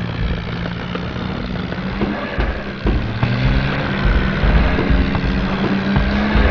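Vehicle engine running steadily, its pitch rising a little about two to three seconds in, with irregular low thumps and rumble.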